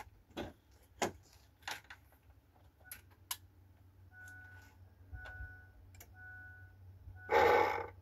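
A few sharp clicks and knocks, then the Ford truck's two-tone warning chime beeping about once a second, as the key goes on before the 7.3 Power Stroke diesel is started. Near the end comes a short, loud rush of noise lasting about half a second.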